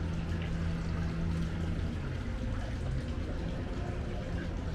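A steady low mechanical hum with the sound of running water over it.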